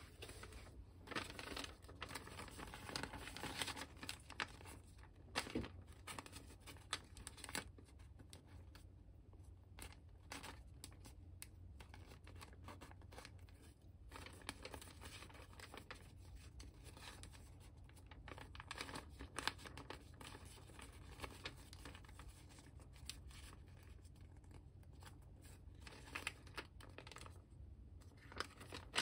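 Origami paper being handled and folded by hand: faint, irregular rustling and crinkling, with sharper crisp crackles as creases are pressed in.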